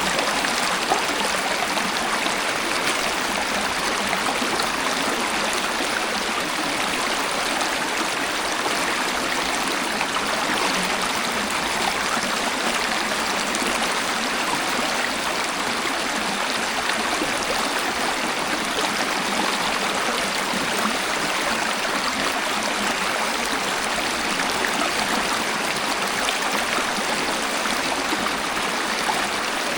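Natural waterfall, water rushing and splashing in a steady, unbroken hiss with little deep rumble.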